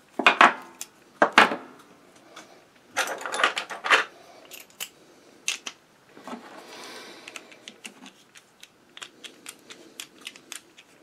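Small metal clicks, clinks and handling knocks as a wrench and loosened screws are worked on the underside of a Singer 192K sewing machine, with parts set down on the wooden bench. Near the end comes a run of light ticks, about four a second.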